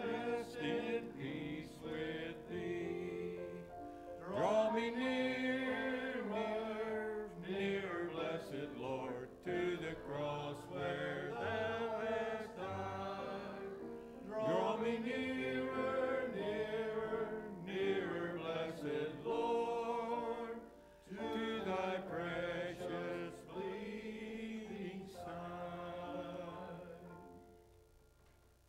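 A man's voice singing a hymn, the singing dying away a second or two before the end.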